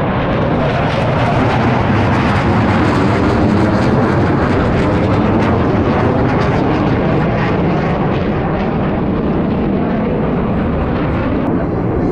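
Blue Angels military jets flying past low, a loud steady rush of engine noise that swells slightly a second or two in and holds.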